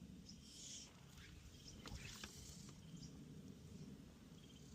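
Near silence: faint outdoor ambience with a low rumble and a few faint, short high-pitched chirps or ticks.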